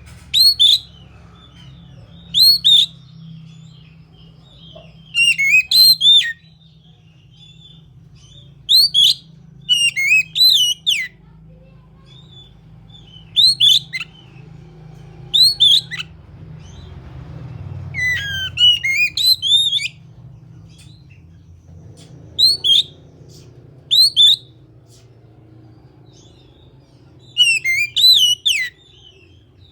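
Oriental magpie-robin (kacer) singing: about a dozen short bursts of loud, sharp whistled notes, separated by pauses of one to four seconds, over a low steady hum.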